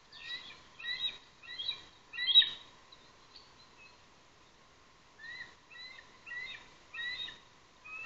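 Recorded bird calls played from a laptop speaker: four short, rising chirps, a pause of about two seconds, then four more.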